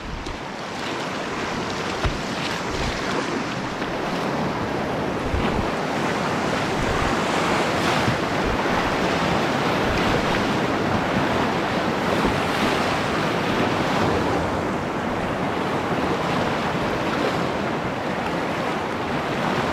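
Whitewater rapid rushing and splashing around a canoe's bow, a steady noise of churning river water with wind on the microphone and a few low thumps.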